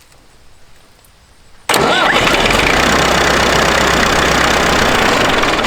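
IMT 560 tractor's diesel engine starting about 1.7 seconds in, cranked and catching at once, then running loud and steady for about four seconds before dropping off near the end. It starts without the electric fuel pump switched on.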